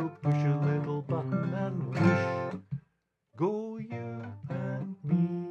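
A man singing the closing phrase of a song with strummed acoustic guitar. The music breaks off briefly about three seconds in, then a few more strummed chords follow, the last one left ringing.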